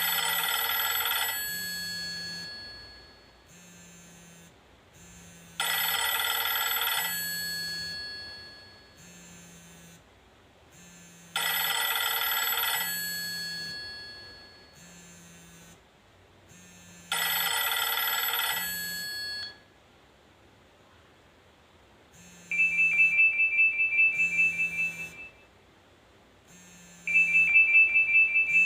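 Nokia E63 ringtones: a bell-like chime rings four times about six seconds apart, each dying away over a couple of seconds, then a different tone, a rapid high two-note trill, rings in two bursts of about two and a half seconds near the end.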